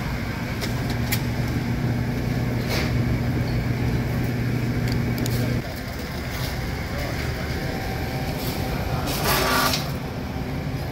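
Steady low hum of a refrigerated meat display case, which stops abruptly about halfway through. There are a few light clicks, and a brief noisy burst near the end.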